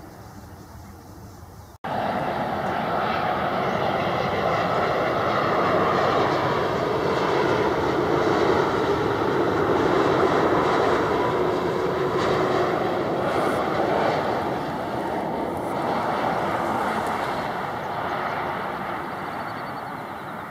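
Boeing 787 Dreamliner jet engines on final approach with the gear down, passing close overhead: a loud, steady jet rumble that swells to a peak about halfway and then slowly fades as the airliner heads for the runway. A quieter stretch of another airliner's distant noise cuts off abruptly about two seconds in.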